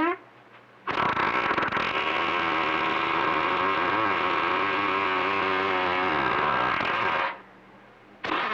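A CB radio receiving a keyed-up transmission that carries a loud, distorted, steady buzzing tone with many overtones. It comes on about a second in, lasts about six seconds, and cuts off sharply near the end.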